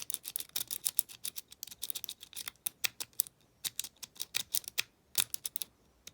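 Rapid, irregular small metallic clicks and ticks of lock-picking tools (a pick and tension wrench) working against an Abus 74/40 lockout-tagout padlock, stopping shortly before the end.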